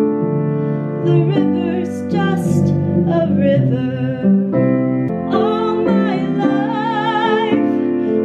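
A woman singing over piano accompaniment during voice practice. She holds a long note with wide vibrato in the second half.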